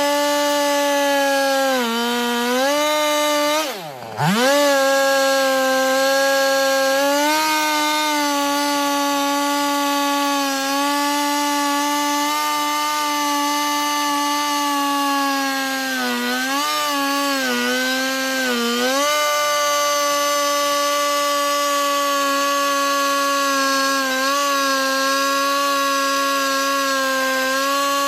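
Husqvarna 395XP two-stroke chainsaw on an Alaskan chainsaw mill, held at full throttle while ripping lengthwise through a fir log to cut a beam. About four seconds in, the engine drops off sharply for a moment and comes straight back up. Between about 16 and 19 seconds the pitch sags a few times as the chain bogs in the cut.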